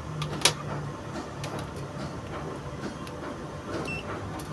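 Light clicks and knocks as a handheld digital multimeter and its test leads are handled. Just before the end comes one short high electronic beep as the meter switches on.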